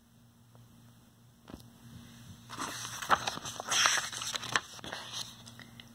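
Picture book pages being handled and turned: paper rustling and crinkling with a few light clicks, starting about two and a half seconds in and dying away about five seconds in, over a low steady hum.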